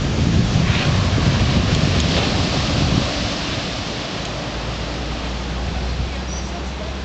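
Strong wind rushing over the microphone with the roar of heavy surf breaking on a concrete seawall. Gusty rumbling in the first three seconds, easing a little after that.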